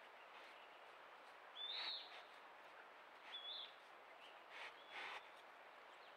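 A faint, short, high chirp-like animal call that rises and then dips, heard twice about a second and a half apart, with softer, lower chirps following, over a steady faint hiss.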